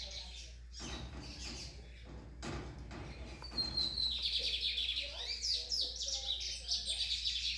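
Sporophila seedeater singing a long, fast, warbling song of high notes that starts about halfway through and runs on, after a few short chirps and a stretch of noise in the first seconds.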